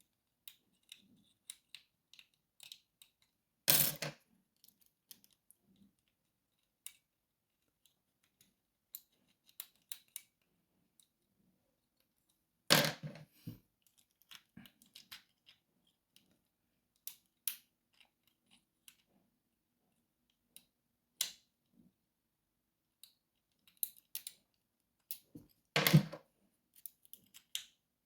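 Lock picks working in a padlock: scattered small metallic clicks and scrapes, with three louder clacks at about 4, 13 and 26 seconds.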